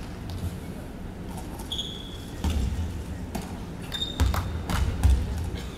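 Basketballs bouncing on a hardwood gym floor, several dull thuds in the second half, with a couple of short high sneaker squeaks.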